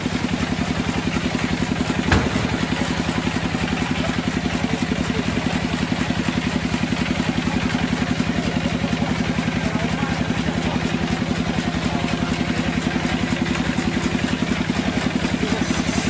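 Homemade band sawmill running, its blade cutting lengthwise through a large log: a steady drone with a rapid, even pulse, and a single sharp knock about two seconds in.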